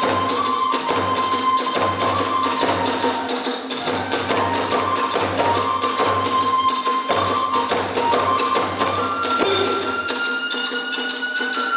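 Hiroshima kagura music: a bamboo flute plays a broken melody over steady drum beats and continuous clashing of small hand cymbals. Near the end the drum drops out and the flute holds a long, slightly rising higher note.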